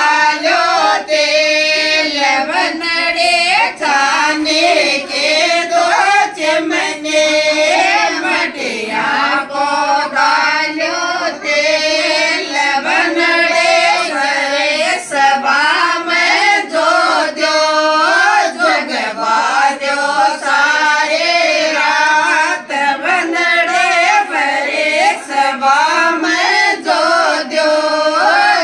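A group of women singing a Shekhawati (Rajasthani) banna-banni folk wedding song together in a chant-like melody.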